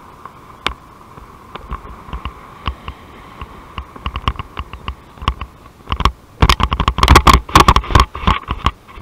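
Wind and handling noise on a paraglider pilot's onboard camera microphone during the final approach to landing: a faint steady hiss with scattered sharp knocks that come faster and louder, turning into a dense run of loud crackles and thumps from about six seconds in.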